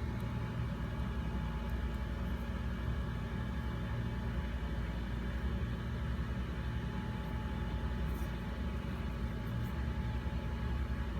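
Steady low rumble and hum of running machinery, even throughout, with a few faint small ticks.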